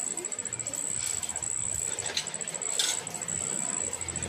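A steady, pulsing high insect trill, with a few light metallic clicks of hand tools being handled a little after two seconds in.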